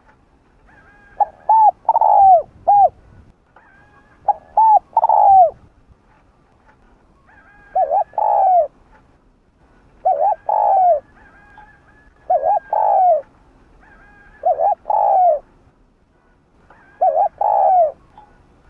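Spotted dove cooing: seven repeated phrases about two seconds apart, each a couple of short coos followed by a longer falling coo.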